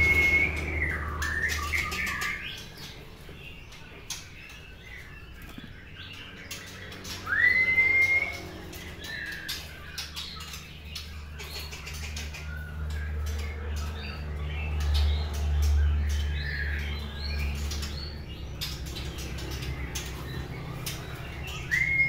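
White-rumped shama singing: loud whistles that swoop up and then hold, one at the start, another about seven seconds in and one at the end, with quieter warbling and chattering notes between them. Frequent short sharp clicks and a steady low hum run underneath.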